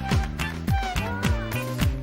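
Upbeat instrumental dance music with a steady kick drum thudding just under twice a second over a bass line, and a sliding melody line about halfway through.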